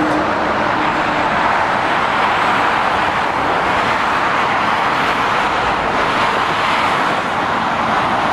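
Steady traffic noise from cars and lorries on a dual carriageway: an even rushing sound of tyres and engines, with no single vehicle standing out.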